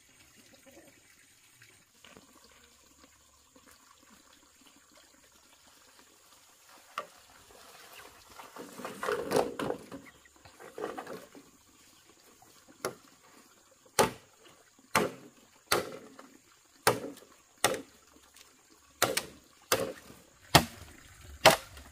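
A brief swell of splashing, pouring water, then a steady run of sharp knocks about once a second, like chopping on a hard surface.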